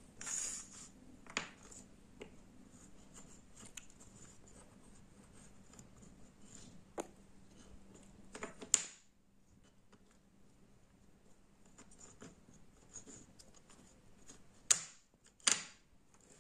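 Wooden jigsaw puzzle pieces being handled and set down on a wooden tabletop: scattered soft clicks and knocks with faint scraping, a few sharper clacks, two of them close together near the end.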